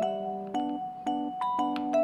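Soft melodic background music: chords and a gentle melody line, with a new note about every half second.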